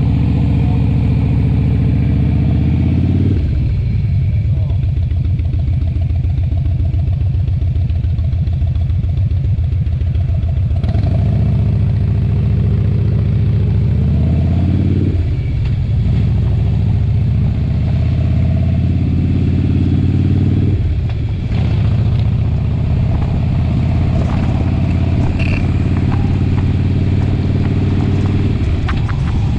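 Motorcycle engine running under way. Its pitch climbs and then drops at gear changes about three seconds in, about fifteen seconds in and about twenty-one seconds in.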